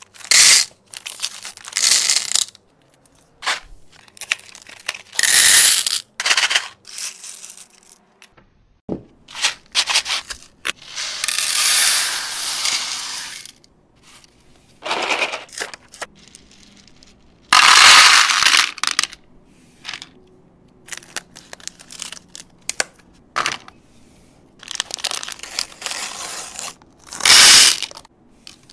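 Candy packets torn open and emptied into a plastic divided serving tray: wrappers crinkling and tearing, and small candy-coated candies rattling into the compartments. The sound comes in a string of separate bursts, a few of them longer pours.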